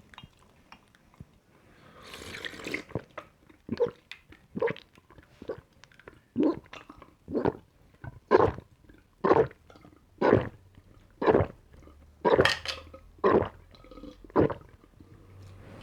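Someone gulping ice-cold water in big, loud swallows, about one a second and a dozen in all. It starts after a brief rush of sound about two seconds in.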